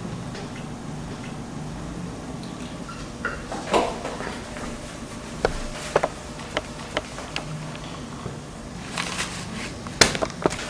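Scattered light clicks and taps of small objects and a wallet being handled on a kitchen counter, the sharpest near the end, over a low steady hum.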